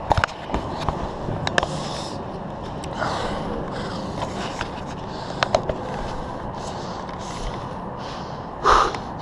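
Light knocks and clicks as a person shifts about on a wooden catwalk: a cluster right at the start, one about a second and a half in, and a pair about five and a half seconds in. Near the end comes a loud, sharp breath through the nose.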